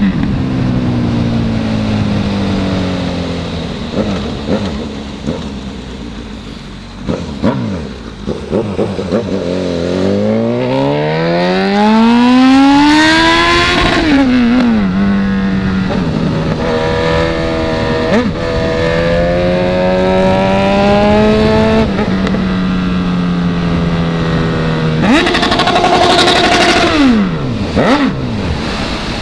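Honda CB1000 inline-four motorcycle engine under way. The note falls as it slows, then climbs hard under acceleration about ten seconds in and drops sharply at a gear change. It holds a steady cruise, then revs up briefly near the end and falls away.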